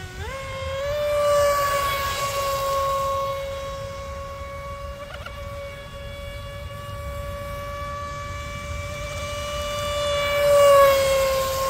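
Mini Mono RC boat's electric motor whining at high throttle on an oval run. The pitch dips and climbs back at the start as the throttle eases for a turn, then holds steady. It gets louder as the boat passes close about a second in and again near the end, with a slight fall in pitch on that last pass.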